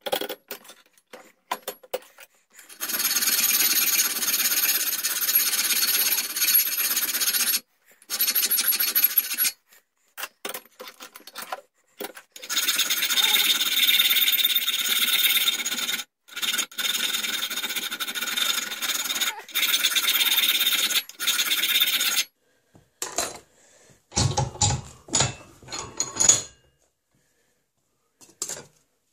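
Hand file working a metal shaft clamped in a bench vise: long runs of steady filing strokes with short pauses between them, as the bevelled octagonal shaft is filed down to round. Near the end the filing stops and a few separate knocks follow.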